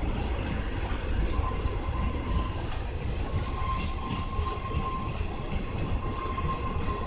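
Iwate Development Railway DD56 diesel locomotive running with its train: a steady, deep rumble, with a thin wheel squeal that comes and goes.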